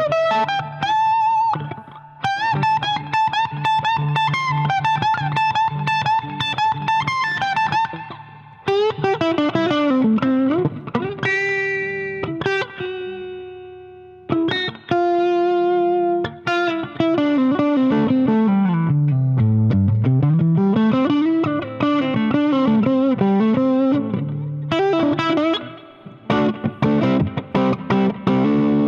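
Electric guitar played through an Electro-Harmonix MIG 50 valve amp with some overdrive: sustained single notes and chords, with a long slide down in pitch and back up about two-thirds of the way through.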